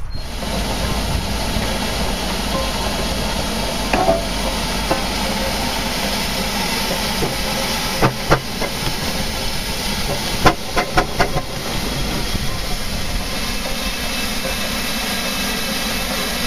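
Steam engine hissing steam steadily, with a few short metallic knocks and a quick run of clanks about two-thirds of the way through.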